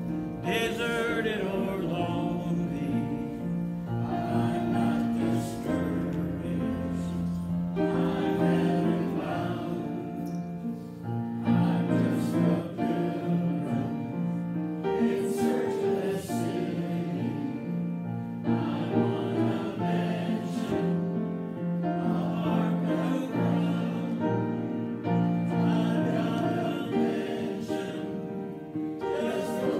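Gospel hymn sung with upright piano accompaniment.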